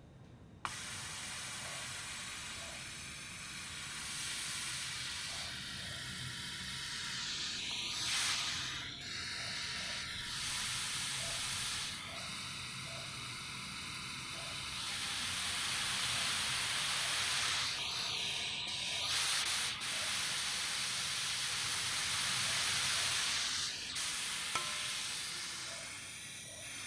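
Trumpet played with extended technique: breath blown through the horn as an airy hiss, with faint whistled tones shifting inside it. It starts abruptly about a second in and changes colour every few seconds.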